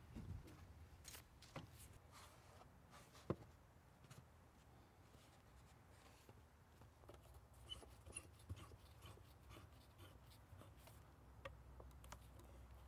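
Near silence: a faint low hum with scattered light clicks and taps, the sharpest about three seconds in.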